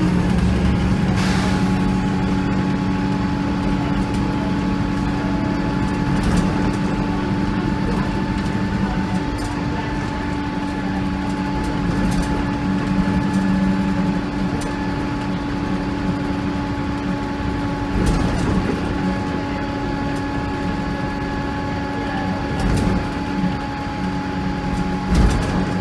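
VDL SB200 Wright Commander single-deck bus heard from inside the passenger saloon while running, its engine and drivetrain giving a steady hum with a held whine over it. A few knocks and rattles come from the body, the loudest near the end.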